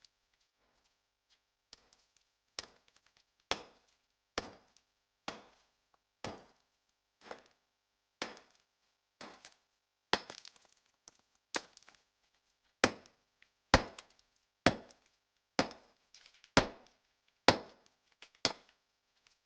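Pickaxe striking a brick wall again and again, about one blow a second, with the blows growing louder toward the end. Some blows are followed by small clatters of broken brick.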